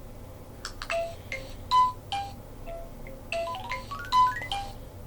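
Lego Mario figure's speaker playing a bright electronic chime jingle as it pairs with the app. The jingle is a string of short notes with quick rising runs, starting about half a second in.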